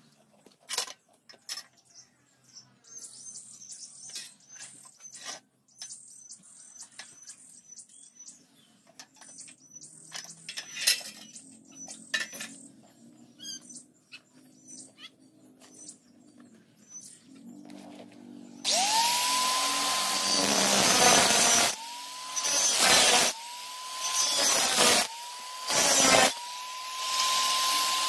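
Electric angle grinder spinning up about two-thirds of the way in and cutting through square steel tube. The loud grinding is broken by four short let-offs where only the disc's steady whine is left. Before that, scattered clinks and knocks of the metal tubes being handled, with a bird chirping.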